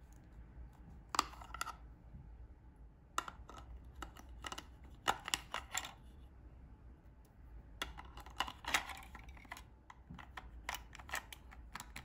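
Clusters of sharp plastic clicks and rattles, several times over, from a T-fal handheld electric lint remover being handled: its lint-catcher compartment pulled off and snapped back on.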